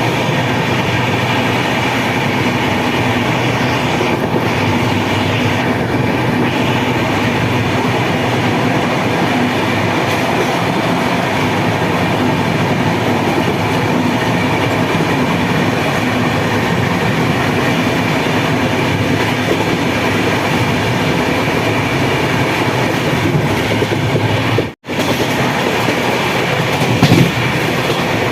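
Passenger train running steadily on the rails, heard from on board as a continuous dense running noise. The sound cuts out for an instant about three seconds before the end.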